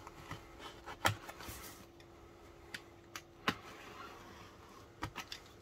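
Snap-off utility knife slitting the packing tape on a small cardboard box: faint scraping of the blade with a few sharp clicks and knocks from handling the box, the loudest about a second in.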